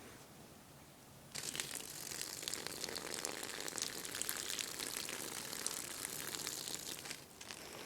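A man urinating: the stream splatters on the ground as a crackling hiss that starts about a second in and stops near the end.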